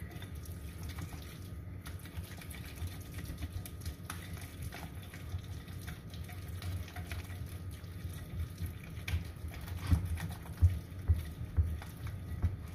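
A silicone-coated whisk beating a runny icing of melted butter, cream cheese and powdered sugar in a glass bowl, working out the sugar lumps: a soft, wet swishing with light taps on the glass. A few louder knocks come near the end.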